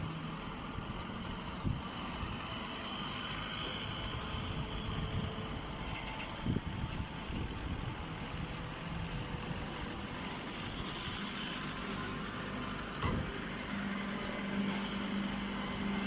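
Straw baler's motor and hydraulic power unit running steadily, with a low hum that grows a little stronger near the end. A single sharp click comes about thirteen seconds in.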